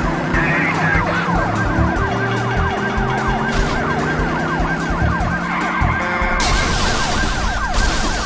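Police siren yelping in fast rising-and-falling sweeps, several a second, over a music track with a steady beat. About six seconds in, a loud rushing hiss of tyres skidding cuts in for over a second.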